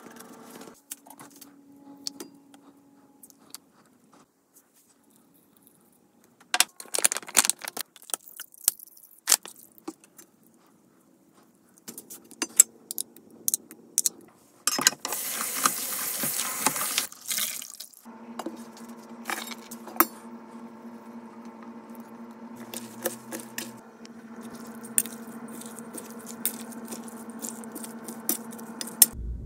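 Metal spoon clinking and scraping against bowls while stirring a thick paste and mixing cut vegetables: scattered light clicks, with a couple of seconds of scraping noise midway. A little past halfway a steady low hum starts and runs underneath the clinks.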